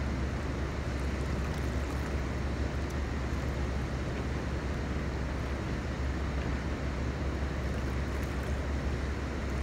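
Steady low rumble with a rushing noise over it, even and unbroken, with a few faint ticks.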